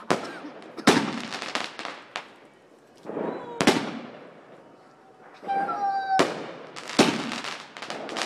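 Aerial fireworks bursting overhead: about five sharp bangs spaced roughly a second or more apart, each followed by a crackling, echoing decay.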